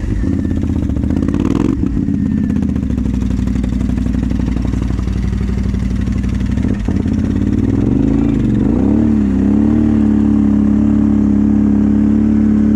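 ATV engine running steadily, its pitch wavering and climbing about eight seconds in, then holding at higher revs. A couple of short knocks come through early and midway.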